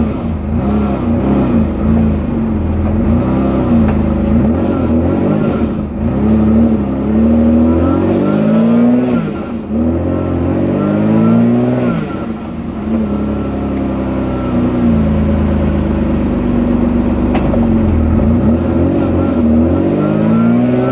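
Supercharged BMW M50B20 straight-six in a Toyota Corolla, accelerating and easing off as the car is driven, heard from inside the cabin. The engine note climbs and falls in pitch several times.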